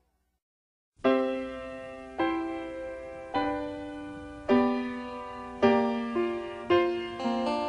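Piano music beginning after about a second of silence: slow chords struck about once a second and left to fade, with quicker notes coming in near the end.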